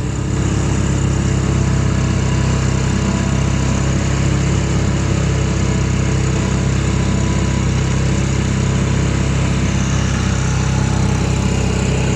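Small boat outboard motor running steadily at constant speed, with a low, even engine hum.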